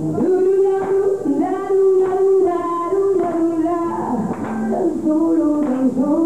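Live blues-rock band playing: a woman sings long held notes into the microphone over electric guitar and a drum kit.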